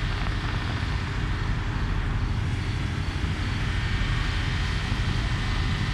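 A fireworks display heard from a distance as a steady low rumble, the individual bursts blurred together with no sharp bangs standing out.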